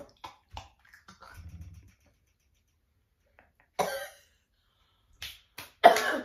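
A woman coughing in a few short, harsh bursts, the loudest about four seconds in and more near the end, from breathing in a cloud of white face powder.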